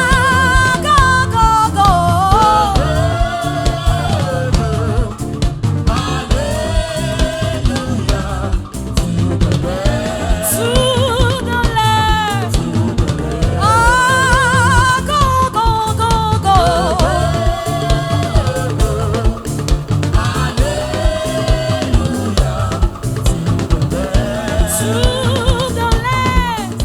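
Gospel praise music: a lead singer's wavering melody, full of vibrato, over a drum kit keeping a steady beat. It stops abruptly at the very end.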